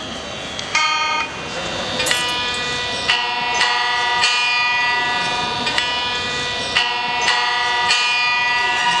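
Homemade electric board guitar played through a small amplifier: its strings are plucked one after another, each note ringing on with many overtones. The notes come about two a second from about two seconds in.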